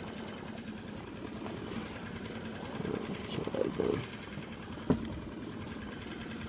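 A skiff's outboard motor running steadily at trolling speed, with an even hum. Some muffled knocking comes around the middle, and a single sharp knock about five seconds in.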